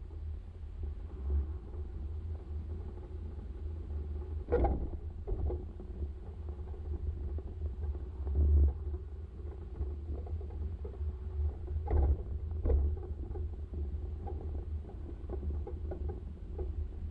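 Vehicle driving slowly over a rough concrete yard: a steady low rumble, broken by three short sharp knocks, one about a third of the way in and two close together past two-thirds.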